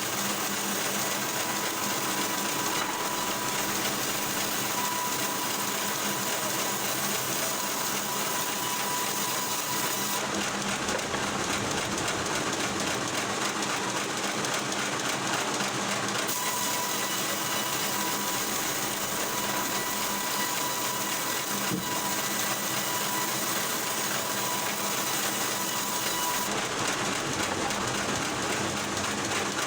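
Steady, dense mechanical noise of log-cutting and wood-splitting machinery running, with a faint steady whine. The sound changes abruptly four times, every five or six seconds.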